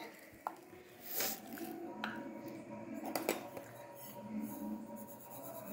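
Fennel seeds tipped from a small steel cup into a steel mixer-grinder jar: a brief rustle of pouring seeds and three light clinks of metal on metal.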